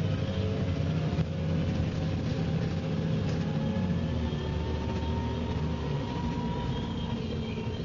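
Dennis Trident double-decker bus heard from inside, its engine and driveline running with a steady drone. Over it a thin axle whine climbs in pitch partway through as the bus gathers speed.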